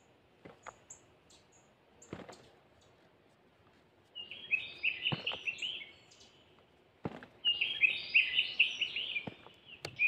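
Little bunting singing: two quick jingling song phrases of repeated high notes, about four seconds in and again about seven seconds in, each lasting roughly two seconds. A few faint clicks come before the first phrase.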